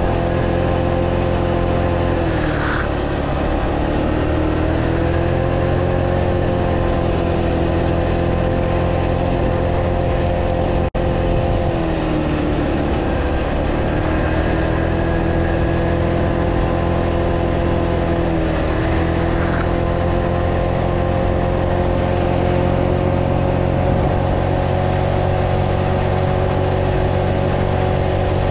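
Italika D125 125cc scooter engine running under way with wind and road noise. Its pitch dips a few times as the throttle eases off, then picks up again.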